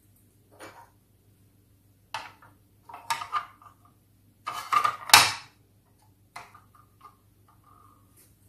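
Small hard-plastic Sylvanian Families toy furniture clicking and knocking against the plastic toy carriage as it is set inside, a scatter of light taps and clacks with the loudest clack about five seconds in.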